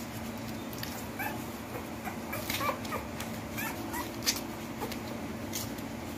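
One-week-old Husky puppy whimpering in a string of short, high squeaks, bunched between about one and four seconds in, with a few sharp clicks among them.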